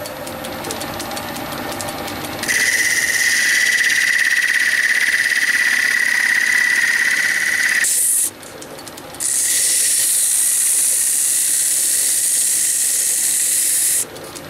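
Metal lathe running with a pine workpiece spinning in the chuck. About two and a half seconds in, abrasive paper is pressed against the turning wood, giving a loud steady sanding hiss with a high whine. The hiss breaks off briefly around eight seconds and again near the end.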